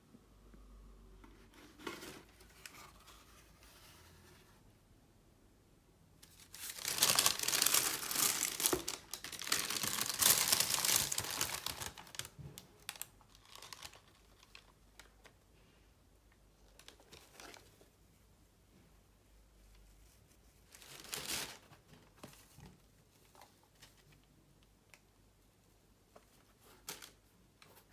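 Packaging of a sneaker parcel being torn open and crinkled by hand. There is a long stretch of tearing and rustling starting about seven seconds in and lasting some six seconds, then a shorter burst about twenty-one seconds in, with small rustles in between.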